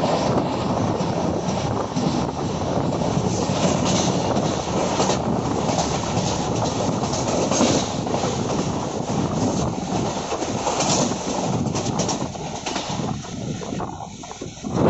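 Running noise of a moving passenger train's LHB coaches: a steady rumble with the clatter of wheels over the rails. It dips briefly near the end.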